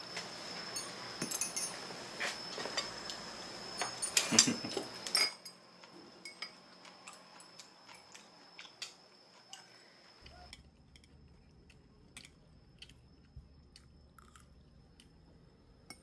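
Kitchen clatter of utensils and dishes clinking: a busier stretch with a cluster of louder clatters about four seconds in, then scattered light clicks.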